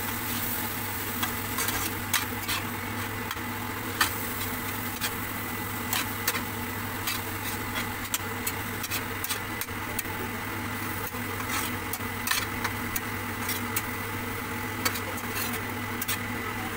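Long slotted metal spatula scraping and clinking against an iron kadai at irregular moments while stirring frying cabbage and carrots, with a light sizzle. A steady mechanical hum runs underneath.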